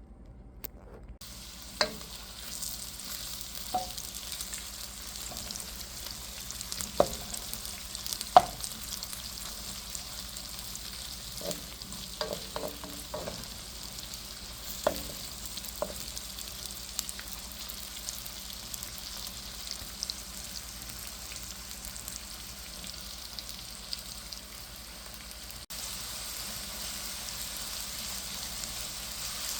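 Food sizzling as it fries in a hot pan, starting about a second in, with occasional sharp clicks and knocks of a utensil against the pan.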